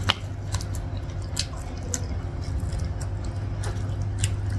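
Close-up eating sounds: chewing with sharp little clicks, and wet squishing as rice and sauce are worked by hand. A steady low hum runs underneath.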